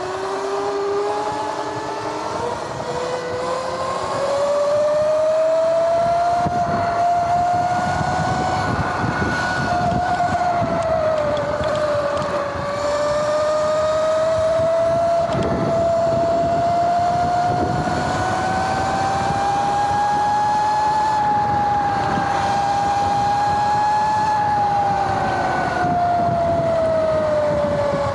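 Sur-Ron X electric dirt bike under way, fitted with a chain conversion in place of its stock primary belt. The motor and primary chain give a loud, noisy whine that climbs in pitch as the bike speeds up over the first few seconds, wavers with speed, and drops near the end. Wind and tyre noise run underneath.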